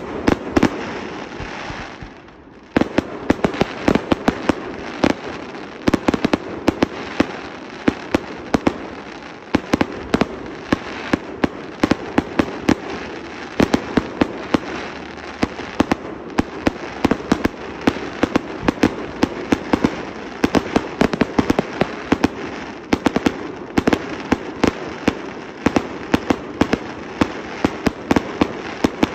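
Fireworks firing in a rapid, continuous barrage of bangs and bursts. It opens with one loud bang and a short lull, then the shots come thick and fast without pause from about three seconds in.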